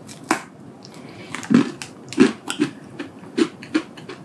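A bite into a crisp ginger-and-brown-sugar parkin biscuit, with a sharp crunch, followed by close-up chewing that crunches two or three times a second.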